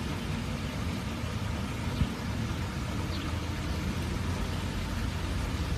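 Steady outdoor background noise: a low rumble with a hiss over it, and a single brief tap about two seconds in.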